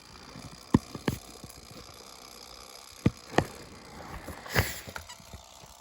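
Handling of a plastic 12-inch box fan: a handful of short, sharp clicks and knocks, spread out over a faint steady hiss.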